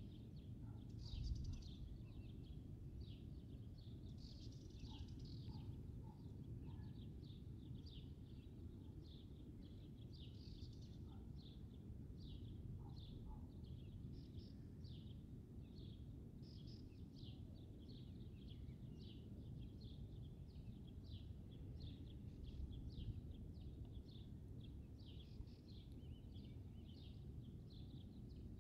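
Small birds chirping continually in short high notes, a few per second, over a low steady rumble of outdoor wind noise, with a brief louder gust about a second in.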